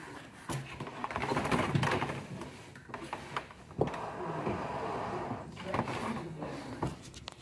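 Handling noise: rustling and scraping with scattered sharp clicks, from equipment and cables being moved behind a TV. The rustling swells twice, about two seconds in and again around four to five seconds.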